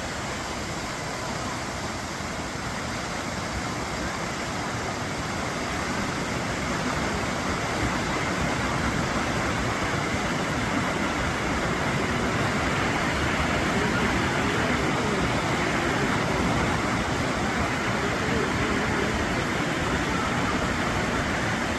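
Waterfall rushing: a steady noise of falling water that grows louder about six to eight seconds in.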